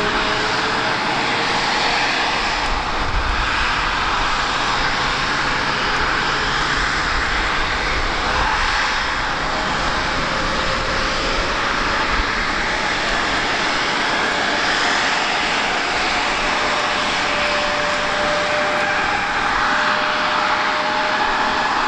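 Bombardier CRJ-900LR jet standing on the apron with its turbines running at idle: a steady rushing noise with a faint whine that drifts slowly in pitch.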